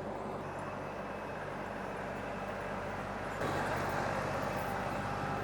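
LS MT352 compact tractor's diesel engine running steadily, growing louder about two-thirds of the way through.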